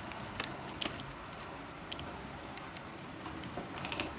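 Handling noise from a plastic packaging tray held in the hands: a few faint, scattered light clicks and taps over steady room hiss.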